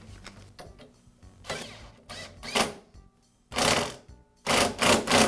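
Cordless drill/driver with a socket running in several short bursts, driving the nut onto the bolt of a lawn mower's cable bracket to tighten it.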